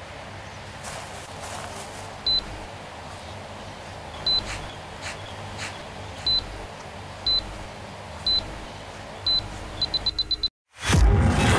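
Electronic beeps on a single high tone, one every second or two, quickening into a rapid run of five. Then a split second of dead silence and a sudden loud noisy burst that fades away.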